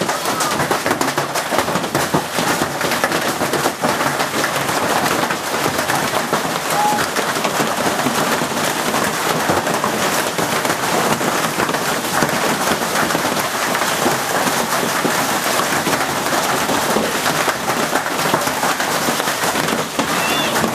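Heavy hailstorm: hailstones and heavy rain falling hard, a dense, steady crackle of countless small impacts.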